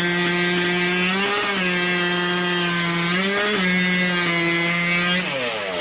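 Two-stroke chainsaw fitted with an exhaust pipe, held at full throttle and cutting through wood in a timed race, with its pitch shifting briefly up and back twice under the load. Near the end the revs fall away as the cut finishes.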